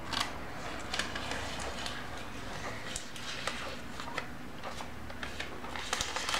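Faint rustling and crinkling of a baking-paper collar being peeled away from the side of a set cheesecake, with a few louder crinkles near the end.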